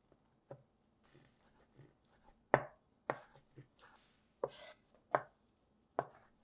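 Wide-bladed cleaver-style knife chopping smoked chicken strips on a bamboo cutting board: about seven uneven knife strikes on the wood, the loudest about two and a half seconds in.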